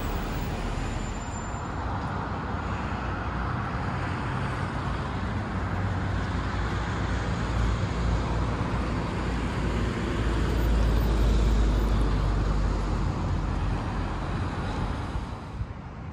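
Road traffic noise: vehicles running with a steady deep rumble, loudest about ten to twelve seconds in.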